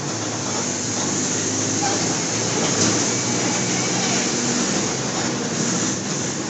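Mercedes-Benz OF-1722 bus's front-mounted diesel engine running steadily under way, heard from inside the bus along with road noise.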